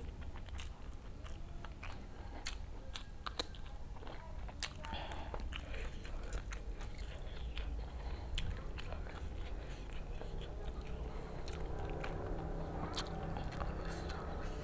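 Close-miked chewing of rice and jengkol (dogfruit) in chili balado sauce, eaten by hand, with many short wet mouth clicks and smacks.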